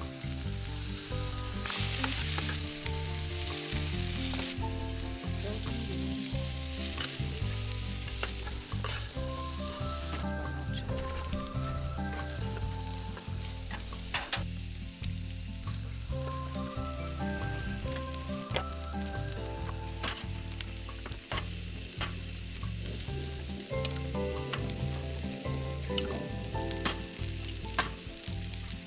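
Background music with a steady low beat and changing melodic notes, over a continuous crackling sizzle.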